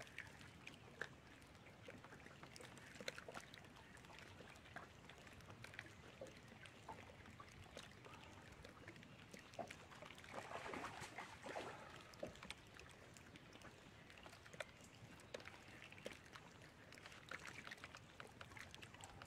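Near silence on the water: faint lapping of water against a boat hull with scattered small clicks and taps, a little louder about ten to twelve seconds in.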